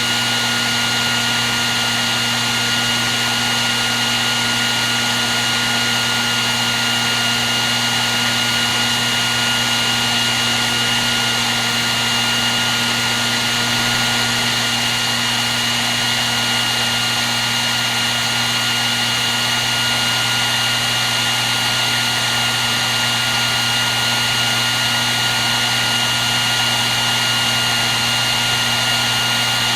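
Hair dryer running steadily on one setting: a constant rush of blown air with a steady motor hum and a higher whine that never change.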